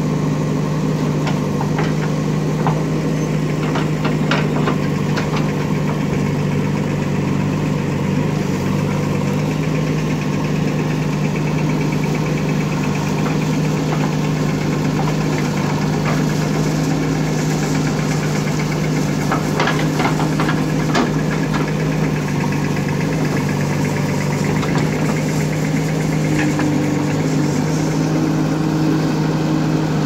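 Diesel engine of a JCB 3DX backhoe loader running steadily while the backhoe arm digs, with a few sharp knocks about four seconds in and again around twenty seconds in.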